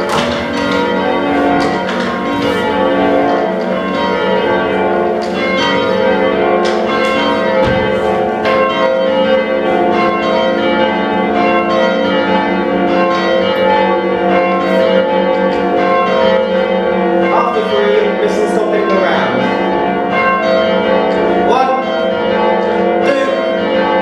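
Ring of five church bells, tenor in F, being rung in changes: a continuous run of strikes, one bell after another, each tone ringing on over the next.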